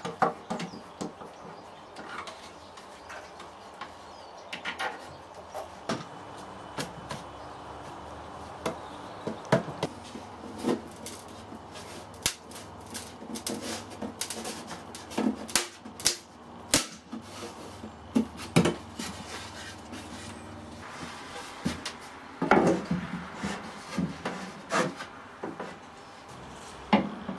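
Hand work on wooden cabinet units: scattered knocks, taps and clicks of wood and hand tools, with some rubbing.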